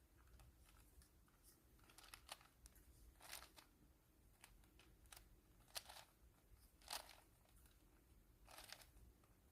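Faint, irregular clicking of a 4x4 Rubik's cube as its layers are turned, single clicks and short runs of a few turns with pauses between.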